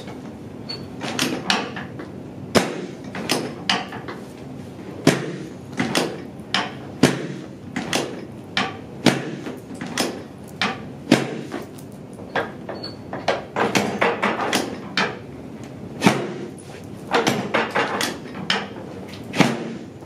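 A long series of sharp knocks and thumps, one to two a second, from chiropractic adjustments on a patient lying face down on a treatment table.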